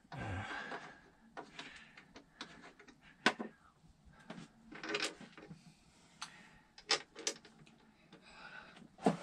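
Heavy battery cables being handled and their metal lugs set onto lithium battery terminals: scattered clicks, knocks and rustles, a sharp click about three seconds in and several more near the end.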